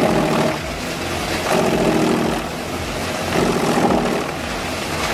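Large engine-driven wood chipper running hard, a dense mechanical din whose pitch and loudness swell and ease every second or two.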